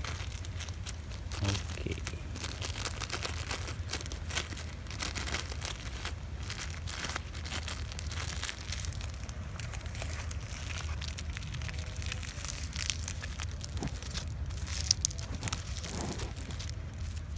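Clear plastic bag crinkling and rustling in irregular crackles as hands squeeze and pack cocopeat inside it around a branch, over a steady low hum.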